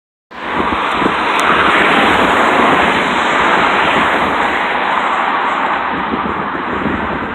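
Combine harvester at work in a rice field: a loud, steady rushing mechanical noise that starts abruptly and holds level.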